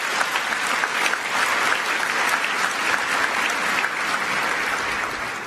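A large seated audience applauding: dense, steady clapping that begins to die away near the end.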